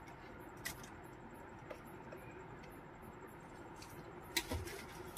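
Faint handling sounds from an inverter welding machine and its power cable being set up: a few light clicks, then a sharper click with a low thump about four and a half seconds in.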